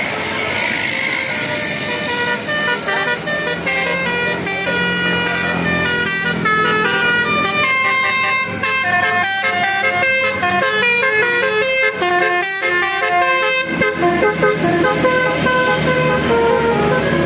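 Bus 'telolet' horn, a set of air horns sequenced to play a tune, sounding a quick run of changing notes over the bus's running engine. The melody starts about four seconds in and its notes come fastest in the middle.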